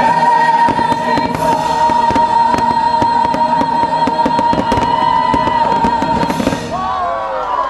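Orchestral and choral show soundtrack holding its long final note, with many firework shells cracking and bursting over it. Near the end the music stops and the crowd begins to cheer and whistle.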